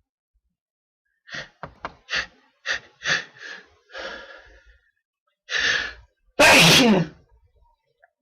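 A person's sneeze fit: about seven quick hitching gasps, then a longer drawn-in breath, then one loud sneeze near the end with a falling voice in it.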